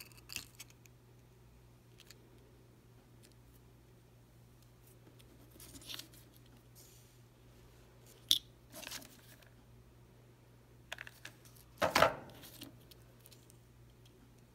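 Quiet handling of craft materials on a tabletop: a few small clicks and short rustles as googly eyes and pom-poms are pressed onto a fabric sock puppet, the loudest a brief rustle and scrape about twelve seconds in. A low steady hum runs underneath.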